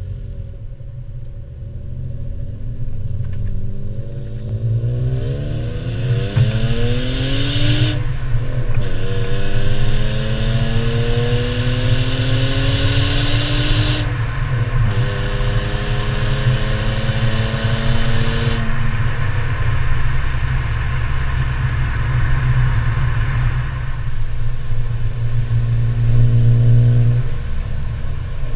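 Exhaust of a 1997 BMW 520i's M52B20 2.0-litre straight-six, decatted and running through a Scorpion rear muffler, heard right at the tailpipes while driving. The revs climb in three pulls, breaking at gear changes about eight and fourteen seconds in, then the engine runs at lower, steadier revs, with a brief rise and drop near the end.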